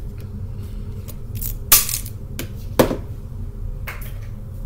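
A few sharp clicks and clacks of scissors at work and being set down on a hard craft work board, the loudest about a second and a half in and another a second later, over a steady low hum.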